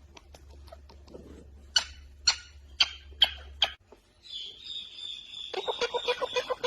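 Animal calls: five short, sharp squeaks about half a second apart over a low hum. After a cut comes a high, held note, then a fast run of repeated calls.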